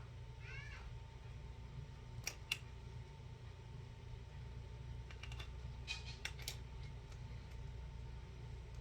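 Sharp small clicks of the AR pistol and its sling's quick-detach fittings being handled: two close together about two seconds in, then a quick run of clicks around five to six and a half seconds.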